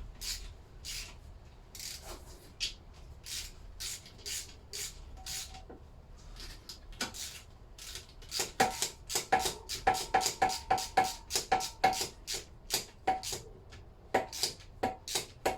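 Repeated light hammer taps on metal, seating the big end bearing cap onto a Lister D connecting rod. The taps come at about two to three a second, and grow louder with a short metallic ring for several seconds in the middle.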